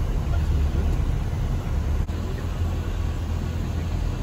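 Steady low rumble of a van's engine and tyres, heard from inside the cabin while driving.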